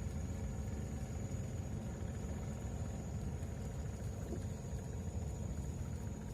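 A small boat engine running steadily at low revs, a constant low rumble, with a steady high-pitched whine above it.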